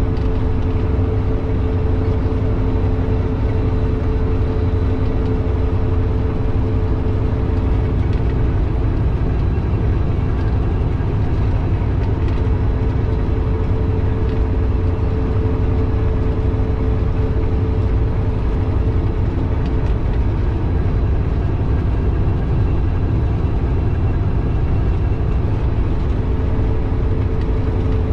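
Kenworth W900 semi truck cruising at highway speed, heard from inside the cab: the diesel engine and road noise make a steady low drone with a constant hum over it, unchanging throughout.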